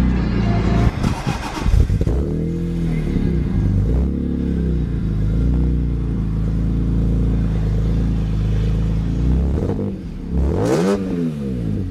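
2002 BMW M3's 3.2-litre inline-six, heard at its quad exhaust tips. It idles steadily with a couple of light throttle blips, then gives one quicker rev that rises and falls near the end. A few knocks of handling noise come in the first two seconds.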